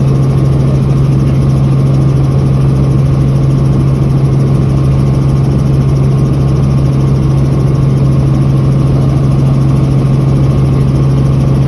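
Helicopter engine and rotor noise heard from aboard: a loud, steady drone with a strong low hum.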